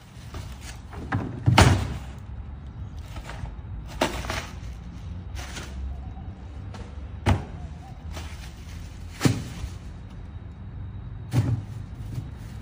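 Plastic wheelie bins being handled, with five sharp knocks spread across the stretch, the loudest about a second and a half in, over a low steady rumble.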